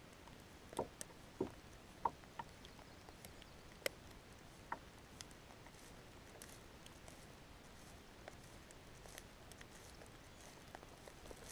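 Faint, irregular light taps and ticks, a dozen or so, scattered over a quiet background.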